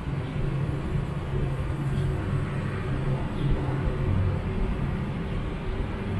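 City laneway ambience dominated by a steady low hum, with no sharp events.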